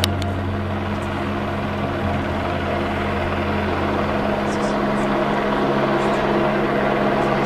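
Light helicopter's rotor and turbine running steadily as it flies slowly, towing a stringing line. It makes a constant drone with several steady tones that hold their pitch.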